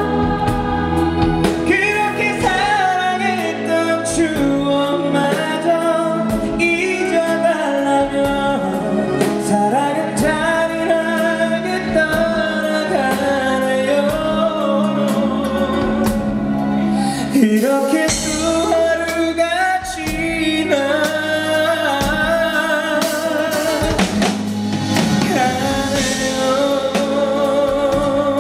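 Live concert performance: a male vocalist singing into a microphone over a backing band with drums, holding notes with vibrato.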